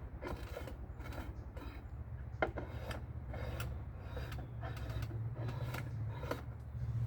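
Steel wool scrubbing the threads of a small metal part by hand, in short irregular scratching strokes with a few clicks, over a steady low hum.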